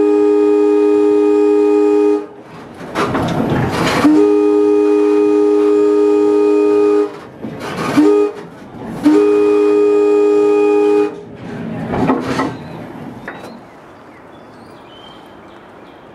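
Diesel locomotive air horn, a two-note chord heard loud from the cab, sounding the long, long, short, long grade-crossing signal: a long blast ending about 2 seconds in, another long blast, a short toot and a final long blast, with engine and wheel rumble in the gaps. Near the end it gives way to a much quieter outdoor background.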